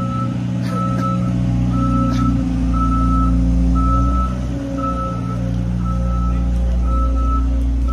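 A truck's reversing alarm beeping about once a second over the steady low rumble of its engine idling nearby.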